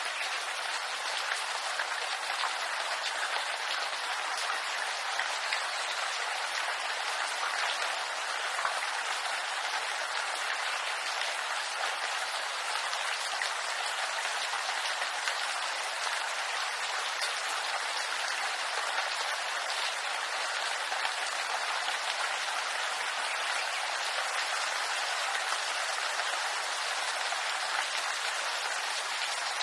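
Steady rain falling in a bamboo grove, countless small drops hitting the leaves in an even, unbroken hiss.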